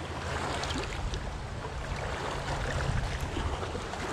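Small wind-driven waves washing against a rocky lakeshore, with wind rumbling on the microphone; a steady wash of noise.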